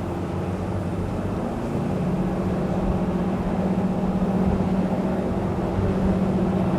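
Water-jet tender running flat out at high speed: a steady engine drone over rushing water and wind, swelling slightly about two seconds in.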